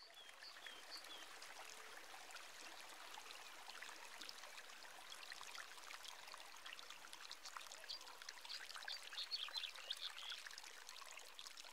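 Faint ambience of trickling, running water, with small high chirps scattered through it.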